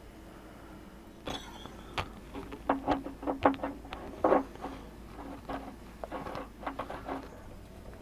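Irregular metallic clinks and taps from a steel element wrench and its bar against a water heater's heating element as the element is screwed into the tank and tightened. The clinks start about a second in and stop shortly before the end.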